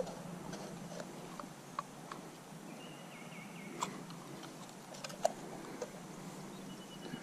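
Scattered small clicks and ticks from hands handling a fishing rod, reel and line, the loudest a little over five seconds in.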